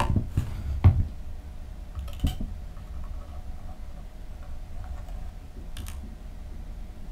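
Small objects being handled on a workbench: a few light clicks and taps, several close together in the first second, then one at about two seconds and another near six seconds, over a faint steady hum.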